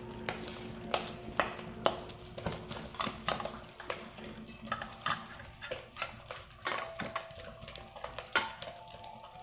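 Several dogs eating together from a hand-held stainless steel bowl: irregular clinks and knocks of muzzles and food against the metal, a few a second.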